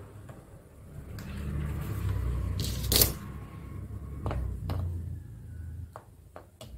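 Soldering iron and a metal pick clicking and scraping against the metal contacts on an LED bulb's cap while the old driver's wire is desoldered. The loudest scrape comes about three seconds in, with a few lighter clicks after it, over a low uneven rumble.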